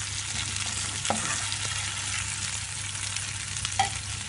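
Marinated chicken pieces sizzling in hot oil in a nonstick frying pan, with a steel spoon clicking against the pan twice as pieces are lifted out.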